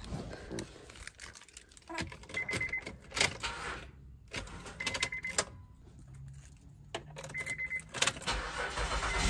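Car keys jangling in the ignition with clicks, and short high dashboard chime beeps about every two and a half seconds, while the engine does not start: the car's battery is dead.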